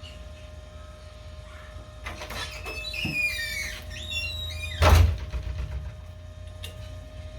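High-pitched squeaks and squeals gliding up and down for about two seconds, then a single loud thump, over a steady low hum.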